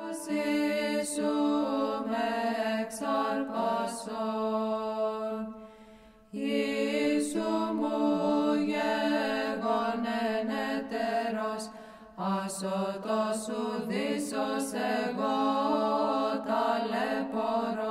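Greek Orthodox Byzantine chant sung over a held drone note, in three long phrases with brief breaths about six and twelve seconds in.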